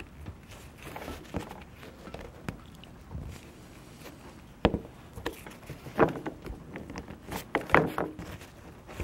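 Scattered plastic clicks and scrapes as the cover of a replacement male cord plug is worked over its terminal body, with the sharpest clicks about halfway through and near the end. The parts are bumping into each other, so the cover won't seat.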